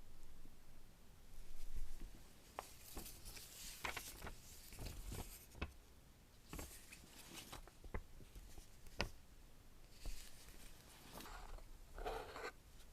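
Box and packaging being handled by hand: intermittent rustling with scattered light clicks and taps, the loudest rustle about two seconds in.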